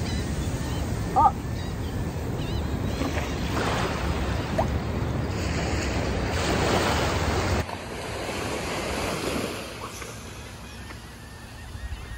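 Small waves washing up and draining back on a sandy beach, rising and easing, with some wind on the microphone. A short high chirp about a second in; the surf is quieter in the last few seconds.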